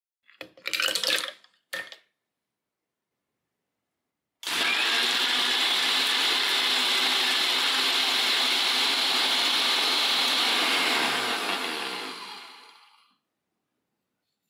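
Electric mixer-grinder blending milk, coffee powder and sugar into cold coffee: a couple of short clatters in the first two seconds, then the motor starts suddenly, runs steadily for about seven seconds and is switched off, spinning down with a falling pitch.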